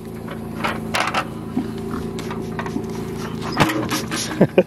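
Hand-held trigger spray bottle squirting fly repellent onto a pig in several short hisses, over a steady low hum.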